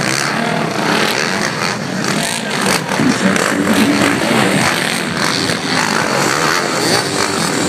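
Enduro dirt bike engines revving up and down as the bikes work over obstacles.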